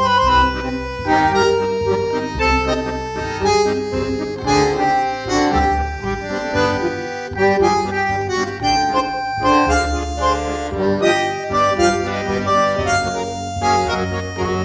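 Background instrumental music: a tune of held, reedy notes over a steady bass line.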